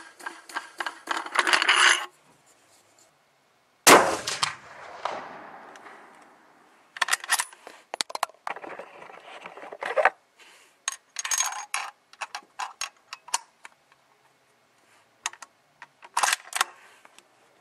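A single .308 Winchester rifle shot about four seconds in, sharp, with a tail that dies away over a couple of seconds. It is followed by a scattered run of short metallic clicks and clinks.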